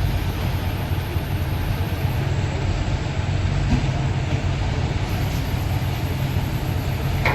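Diesel engine of a JCB 3DX backhoe loader running steadily at work. A faint high-pitched whine is heard for the first two seconds and again from about five seconds in.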